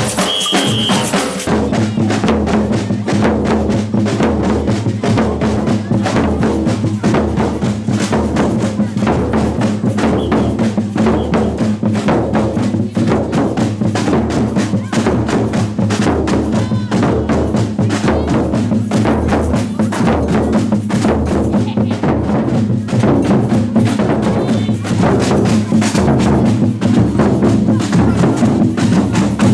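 Batucada percussion ensemble playing a steady, driving samba rhythm: deep surdo bass drums in a regular repeating pattern under dense snare and small hand-percussion strokes. A short high whistle sounds about half a second in.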